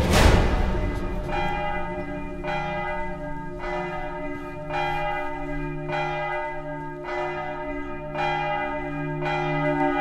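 A large bell tolling, struck about once a second, each stroke's ringing carrying on into the next. The first stroke, right at the start, is the loudest.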